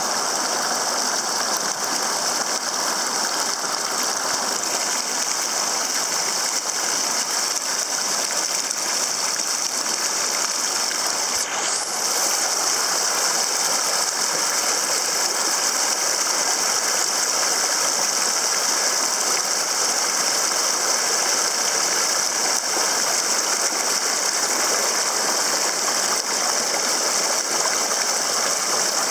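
Small mountain waterfall, creek water rushing and splashing steadily over rocks with a bright, fizzy hiss. About eleven seconds in there is a brief break, and after it the rush is slightly louder.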